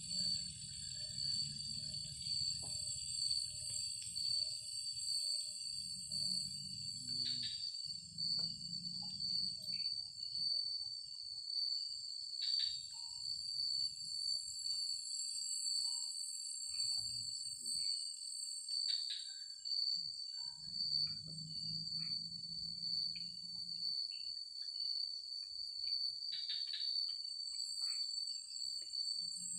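Insects trilling steadily in a high, pulsing tone over a higher hiss of more insects, with a short falling call about four times, roughly every six seconds.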